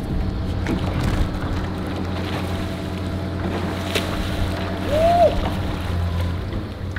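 Wind on the microphone and water lapping around a small skiff, over a steady low hum. Around four seconds in a fish strikes the lure at the surface with a splash, and a short squeal that rises and falls follows as the fight begins.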